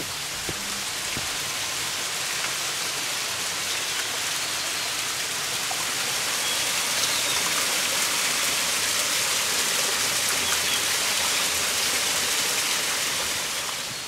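Rushing mountain valley stream: a steady hiss of running water that grows slowly louder and eases off near the end.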